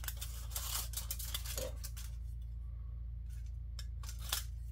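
Aluminium foil crinkling and scraping as it is handled and pressed against a plastic model part, busiest in the first two seconds, then a few faint clicks.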